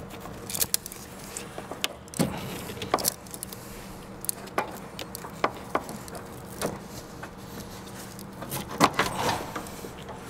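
Irregular metallic clinks and knocks from a power steering return line, a metal tube with rubber hose sections, being pulled up and worked past the AC lines and compressor, tapping against the surrounding parts. There is a busier rattle near the end, over a faint steady hum.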